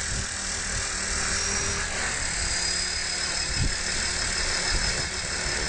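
Blade 400 electric RC helicopter running, picked up by a camera mounted on the airframe: a steady high motor whine over rotor noise and a low rumble.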